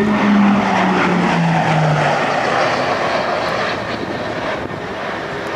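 E-2 Hawkeye's twin T56 turboprop engines and propellers flying past: the propeller hum drops in pitch over the first two seconds as the aircraft goes by, then the engine noise fades as it moves away.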